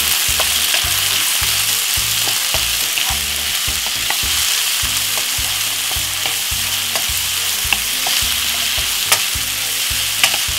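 Chopped onion, tomato and spring onion sizzling in a little oil in a hot non-stick frying pan while a wooden spoon stirs them, with a few sharp taps of the spoon against the pan near the end.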